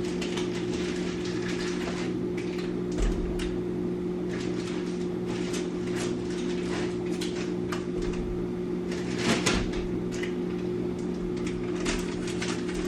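Frequent small clicks and knocks of things being handled and set down, over a steady low electrical hum, with two louder knocks about three seconds in and about nine seconds in.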